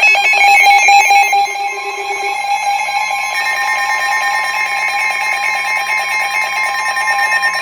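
Several weather alert radios sounding their tornado-warning alarms at once: the long steady warning tone with the radios' own rapid pulsing alarm beeps layered over it. Another tone joins about three seconds in.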